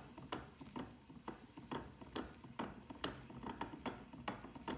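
Baitcasting reel being cranked by hand, winding line off a bulk spool that turns under light wing-nut friction on the spooler, with a light click about twice a second.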